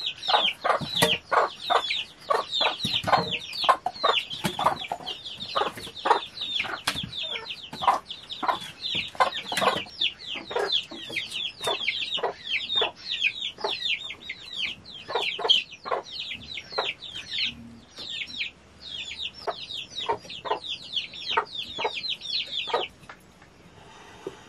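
Chickens calling: a steady run of short, high-pitched calls, several a second, that stops shortly before the end.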